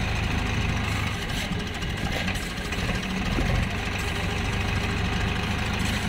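Swaraj tractor diesel engines running as the tractors work in loose river sand. The engine sound eases off from about a second in and comes back up after a couple of seconds.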